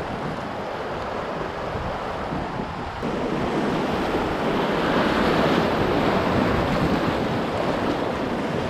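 River rapids rushing and splashing around a canoe running through whitewater, growing louder about three seconds in as the boat drops into the rougher water.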